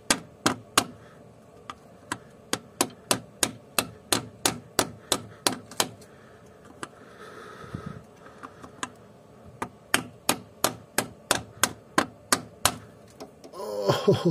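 Rubber mallet striking a home-made seal-driver cap in a steady series of sharp blows, about two to three a second, with a pause of a few seconds midway. The blows drive a new driveshaft oil seal into an Opel F17 gearbox housing.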